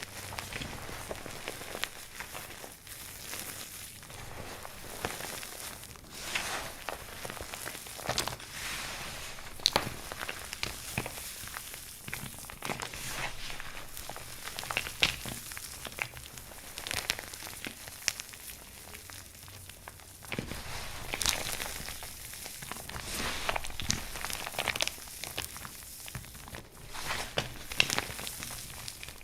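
Dry soap crunching: many sharp, irregular crackles and crunches as the soap is cut or crushed, with a denser run of crunches around the middle and near the end.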